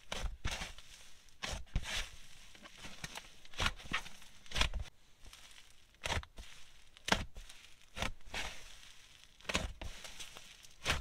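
Hands pressing and squeezing a thick, airy slime, giving short crackling squishes about once a second.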